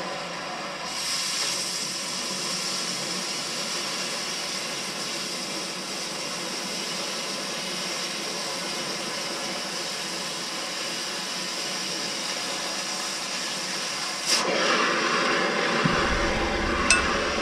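Oxy-fuel cutting torch hissing steadily as it works on the steel of an excavator boom, growing louder and rougher about fourteen seconds in.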